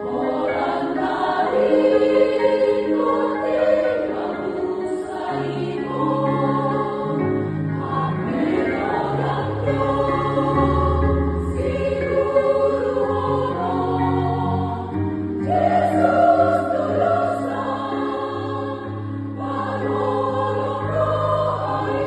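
Women's church choir singing a Toba Batak hymn in several parts, in long held phrases with brief breaks between them.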